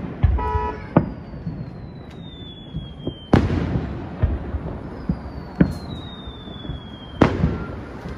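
Aerial fireworks shells bursting: about six sharp bangs a second or two apart, the loudest about three and seven seconds in, each trailing off in an echo. A short pitched tone sounds just under a second in.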